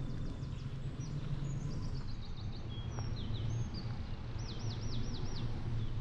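Small songbirds singing high-pitched phrases of short descending notes, with a quick trill about halfway and a run of about five looping slurred notes near the end, over a steady low rumble.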